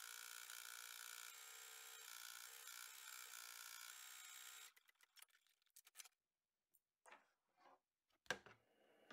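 Husqvarna Viking embroidery machine faintly running a placement stitch, a steady whir that stops about four and a half seconds in. A few faint clicks and a light knock follow as the hoop is taken off the machine.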